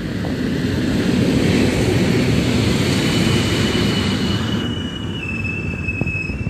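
EP08 electric locomotive and its Intercity passenger coaches passing close by, a heavy rumble of wheels on rail that is loudest a second or two in. From about halfway through, high squealing from several tones comes in as the train brakes.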